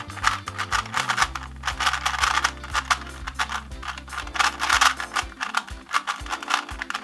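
Original Rubik's Cube being turned rapidly during a speedsolve: a fast, continuous clatter of plastic clicks as the layers snap round.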